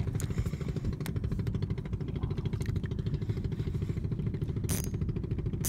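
Small boat engine running steadily with an even, rapid pulse. Two brief sharp clicks come near the end.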